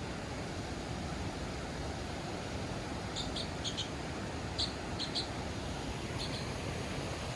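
A small bird chirping: short, high chirps, several in quick pairs, over a steady rushing background noise.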